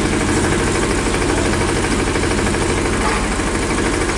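An engine running steadily with an even, fast low pulsing.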